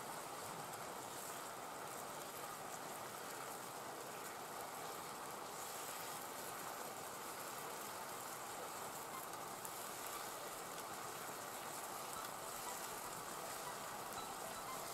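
Mushrooms frying in a pan over a wood campfire: a steady sizzle with small crackles.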